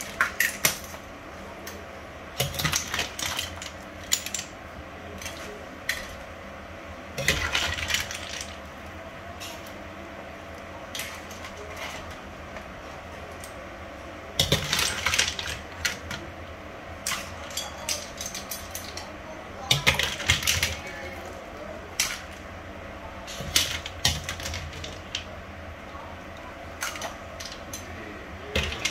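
Metal tongs and a skimmer ladle clinking and scraping against a nonstick pan and a serving plate in irregular bursts of clatter as cooked seafood is lifted out of its sauce, over a steady background hum.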